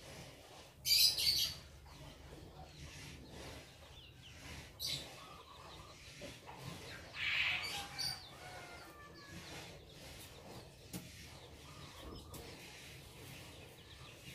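Several short bird chirps and calls, the loudest about a second in, with a chicken-like call around the middle that falls in pitch, over a faint steady low rumble.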